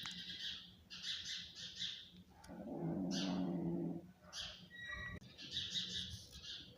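Snoring-like breathing: runs of short, raspy hissing pulses, with one louder, lower drawn-out breath in the middle.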